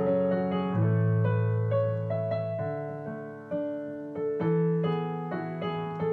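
Background piano music: a gentle melody of single notes over held bass notes.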